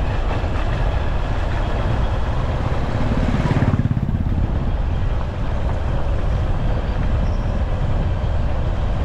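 Honda XR190L's single-cylinder engine running as the motorcycle is ridden, with a brief louder surge and a short rise in pitch about three and a half seconds in.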